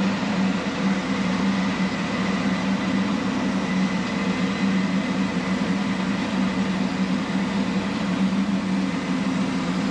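A self-propelled forage harvester chopping standing corn and blowing it onto a silage truck's load, with the steady drone of diesel machinery under a constant rush of noise and a strong low hum.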